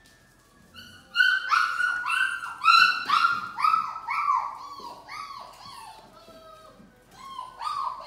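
Six-week-old Labrador Retriever puppy yipping: a quick run of high-pitched yelps, each rising then falling, about two to three a second. They begin about a second in, fade after about five seconds, and come again twice near the end.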